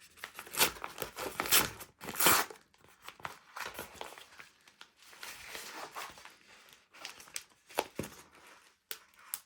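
Parcel packaging being torn and crinkled by hand as it is opened, in irregular rasps that are loudest in the first two and a half seconds, followed by softer scattered crackling and a couple of sharp clicks.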